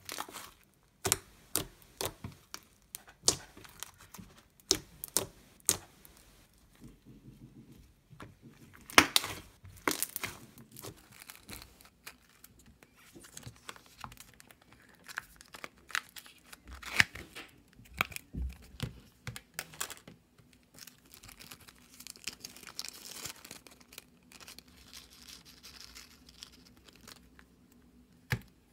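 Slime being stretched and handled: sticky tearing and crinkling with irregular sharp clicks and pops, and a softer crackle near the end.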